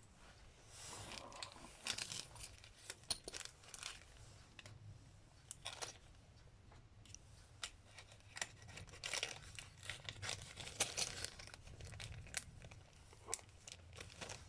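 Crinkling rustles and scattered small clicks from carburetor rebuild-kit parts and their packaging being handled.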